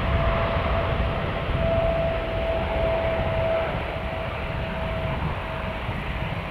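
Boeing 777F's GE90 turbofan engines running at low taxi power: a steady rumble and hiss with a constant whine, easing off a little in the second half.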